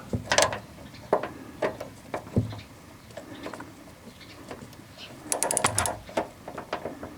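Ratchet wrench with a 13 mm swivel socket working on a truck door-hinge bolt: scattered metal clicks and knocks, then a quick run of ratchet clicks a little past the middle.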